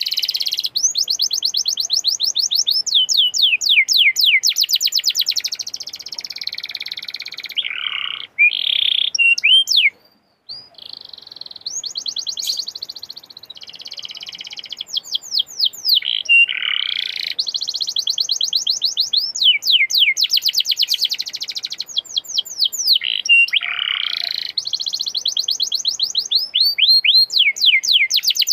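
Domestic canary singing long, fast rolling trills of rapidly repeated high notes, one phrase running into the next, with a short break about ten seconds in.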